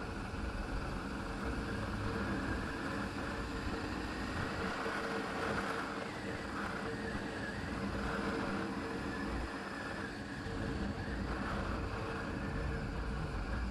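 Motorcycle engine running steadily while riding, with wind and road noise over the microphone.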